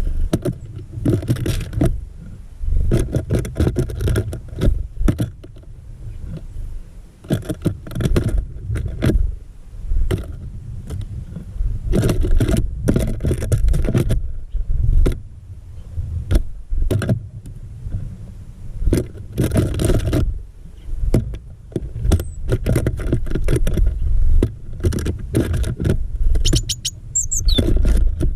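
Small birds at a feeder, close to a GoPro's microphone: irregular knocks, clicks and scrapes of feet and beaks on the feeder over a low rumble that comes and goes. A short high chirp comes near the end.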